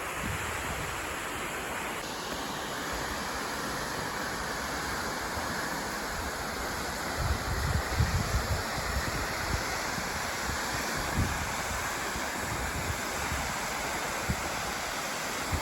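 Steady rushing of a 62-foot waterfall, with wind buffeting the microphone about seven to nine seconds in.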